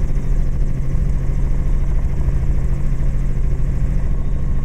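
Robinson R44 helicopter in flight, heard from inside the cabin: a steady, loud drone of its piston engine and rotors.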